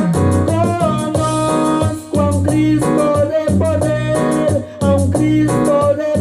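Upbeat Latin-style band music with a steady beat, a repeating bass line and a held lead melody.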